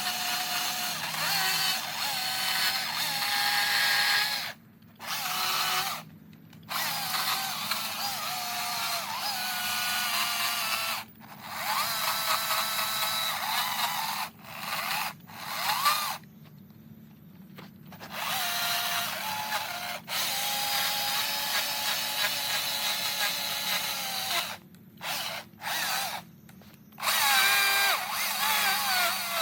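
Power carving tool cutting into eastern red cedar, its motor whine wavering in pitch as it bites and stopping completely several times for a second or two.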